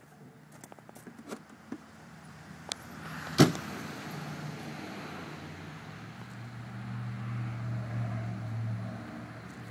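A motor running with a steady low hum that sets in about three seconds in and swells between about seven and nine seconds. A sharp click is heard about three and a half seconds in, with lighter clicks before it.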